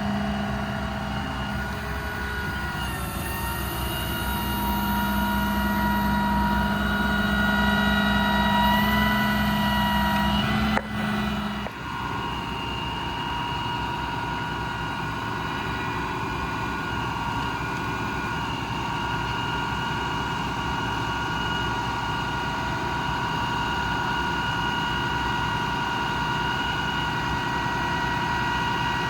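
Diesel truck engine running under the load of a crane's hydraulic system, with a steady whine. A low hum cuts out briefly about two seconds in and returns; a short knock comes near eleven seconds, after which the hum stops and the whine settles into an even tone.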